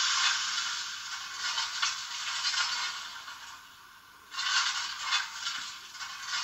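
Steam-locomotive sound effects from the sound decoder of a Trix BR 42 model steam locomotive: a rough, hiss-like noise with a few sharper strokes in it fades over a few seconds, then starts up suddenly again about four seconds in.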